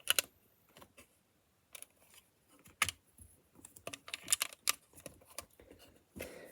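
Plastic LEGO pieces being handled and pressed together: sharp separate clicks just after the start and near three seconds, a quick run of small clicks around four to five seconds, and one more near the end.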